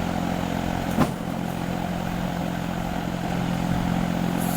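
A steady motor hum, with a single sharp knock about a second in and a short burst of hiss near the end.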